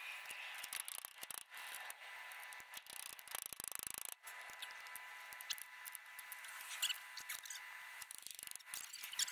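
Faint rubbing and scraping with many small clicks, from hands working the truck's front wheel hub assembly, metal on metal.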